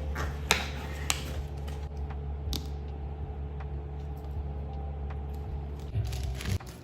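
Packaging being handled during an unboxing: a few sharp clicks and taps, the strongest about half a second and a second in, with light handling noise over a steady low hum.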